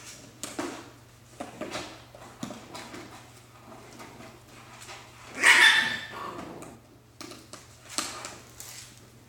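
Alaskan Klee Kai puppy yapping once, loudly and briefly, about five and a half seconds in. Scattered scratching and rustling of cardboard run around it as the puppy paws and mouths the edge of a cardboard box.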